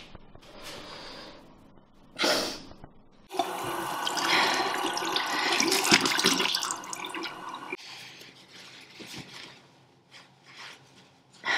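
Bathroom sink tap running and splashing into the basin while someone washes her face. The water starts a few seconds in and shuts off sharply a few seconds later, followed by faint rustling of a towel.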